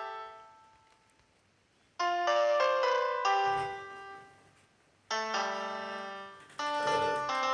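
Soft background piano music: short phrases of a few notes, each struck together and left to ring and fade, with a pause of about a second between phrases.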